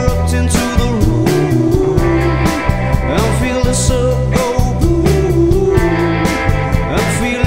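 Rock song with guitar, bass and a steady drum beat, and a melodic line over it.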